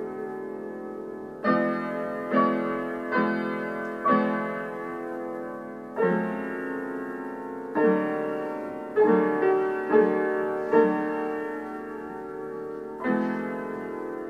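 Piano played slowly: chords struck one at a time and left to ring and fade, with a quicker run of chords a little past the middle.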